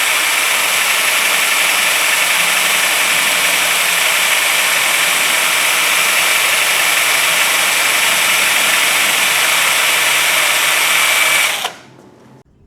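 Power drill spinning a polishing pad against a surface, running steadily with a lot of hiss, while polish is spread on to dry to a haze. It cuts off suddenly near the end.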